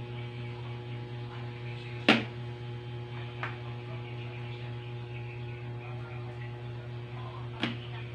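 Steady electrical mains hum, with sharp clinks of a spoon knocking against the batter basin while puto batter is stirred and ladled: a loud clink about two seconds in, a fainter one a little later, and another near the end.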